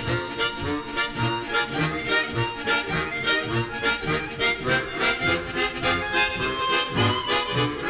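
Three harmonicas playing a Romanian hora tune together, with a bass note pulsing about twice a second under the melody.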